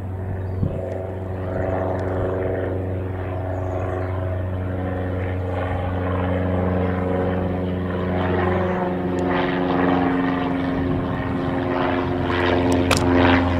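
Single-engine Cessna light aircraft's piston engine and propeller droning steadily as it flies overhead, growing gradually louder as it comes closer.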